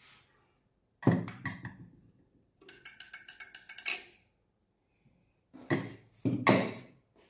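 Hand work on a cup sealing machine during a sensor replacement: a sharp knock with a short clatter, then a quick run of light clicks ending in a louder click, then two or three more knocks near the end.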